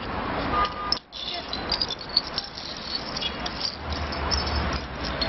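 Street background noise with voices and passing traffic, a low rumble rising around four seconds in. Light clicks come from metal bottle caps being set down and slid on concrete pavement.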